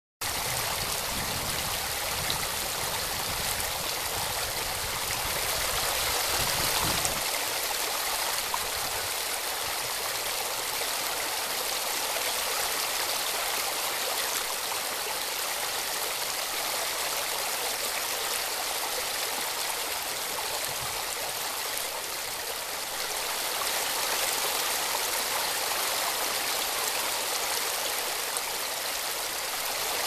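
Shallow rocky stream rushing over and between rounded stones in a small cascade: a steady hiss of running water, with a low rumble in the first several seconds.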